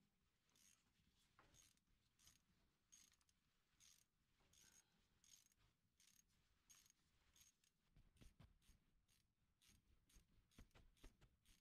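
Ratchet wrench clicking in short strokes on the front driveshaft's flange bolts at the transfer case, about two clicks a second. In the last few seconds the clicking quickens, with a few low knocks of tool and hand against the parts.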